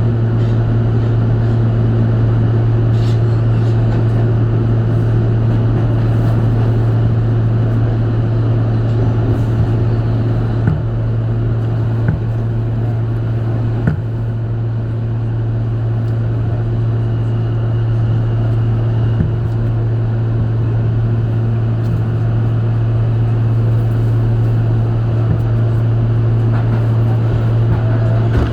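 R160 subway car running at a steady speed, heard from inside the car with its HVAC off: a steady low hum over rumbling wheel and track noise. A few sharp knocks come through near the middle.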